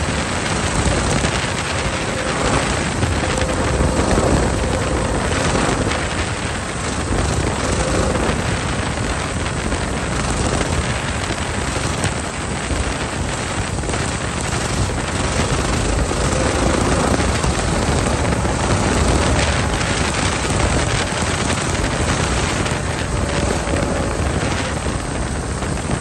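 Coleman minibike's small single-cylinder engine running steadily at riding speed, with wind rushing over the microphone.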